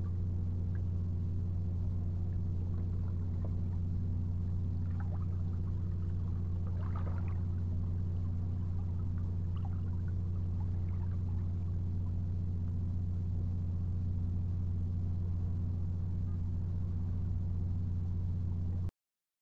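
A steady low hum that holds one unchanging pitch, with a few faint ticks about halfway through. It cuts out for about a second near the end.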